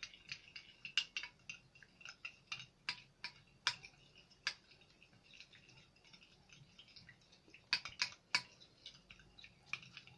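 Spoons stirring glue and red colouring in glass bowls, clinking and scraping against the glass in quick, irregular ticks, with a quieter spell about midway.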